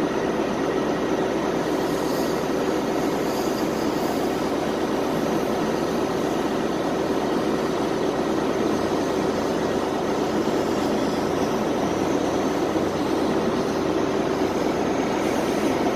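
A train standing at a station platform, idling with a steady drone and a constant low hum.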